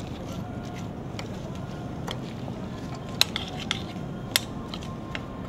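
A utensil stirring trail mix into thick melted chocolate in a stainless steel double-boiler pot: scraping, with scattered sharp clicks against the pot. The loudest clicks come about three and four seconds in, over a steady low hum.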